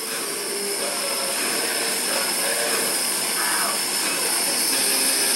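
Gas torch flame hissing steadily as it melts old lead body filler out of a car's rusted rear body flange, growing a little louder over the seconds.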